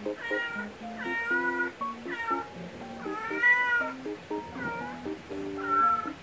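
An adult cat meowing six times in a row, calling to rouse its kittens. The longest and loudest meow comes about halfway through. Light background music with short plucked notes plays underneath.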